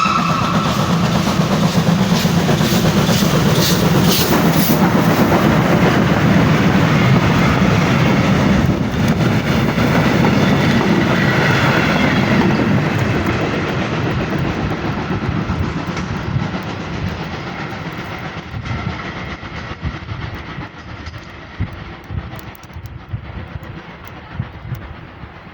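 Steam-hauled passenger train running past, its carriage wheels clattering over the rail joints. It is loud at first and fades steadily over the second half as the train moves away, leaving single wheel clicks near the end.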